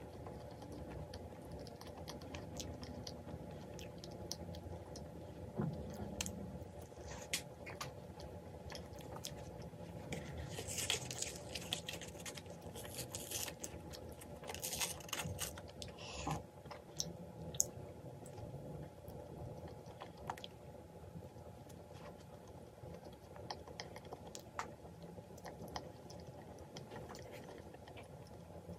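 Close-up chewing and crunching of a crispy croquant choux cream puff, with small sharp crackles scattered through it and a denser stretch of crackling around the middle.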